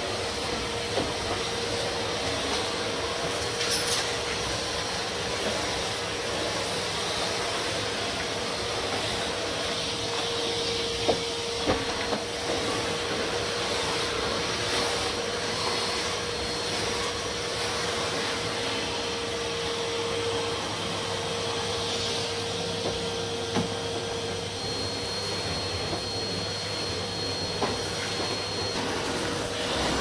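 Numatic Hetty cylinder vacuum cleaner running steadily with a constant motor whine, its floor tool pushed back and forth over carpet, with a few brief clicks.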